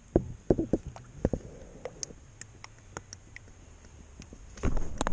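Fresh motor oil poured from a plastic jug through a funnel into the engine's oil filler. A few sharp plastic knocks come in the first second or so as the jug and funnel are handled, then a steady low pouring sound, then louder knocks near the end.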